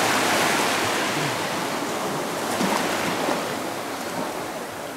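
Small sea waves breaking and washing up the sand at the water's edge, a wash of surf that fades over the few seconds as the foam spreads and draws back.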